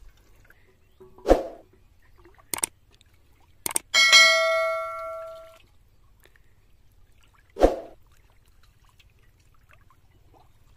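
Subscribe-button animation sound effects: a short swish about a second in, two mouse-style clicks, then a bright notification-bell ding that rings out for about a second and a half, and a second swish near the end.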